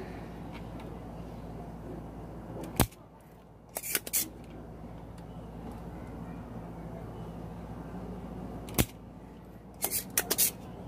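Spring-loaded desoldering pump snapping twice, about six seconds apart, as it sucks molten solder off a joint on a CRT TV circuit board to free a part. Each snap is followed about a second later by a few lighter clicks. A steady low hum runs underneath.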